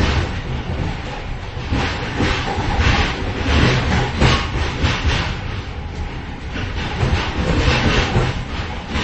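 A moving train heard from the vestibule between its cars: a steady low rumble overlaid with dense, irregular clatter.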